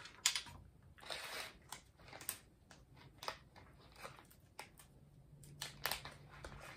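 A small ration food pouch being torn open and handled: faint crinkling and tearing with scattered small clicks.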